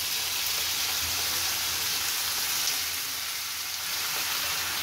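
Potato strips in hot oil in a frying pan sizzling steadily as water is poured in.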